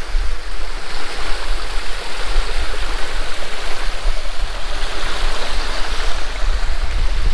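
A mountain stream rushing steadily into natural pools, loud and close, an even hiss of water with a deep rumble underneath.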